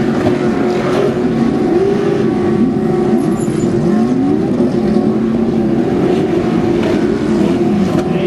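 Off-road race truck engines running hard on a dirt track, several at once. Their pitch rises and falls repeatedly as they rev up and shift.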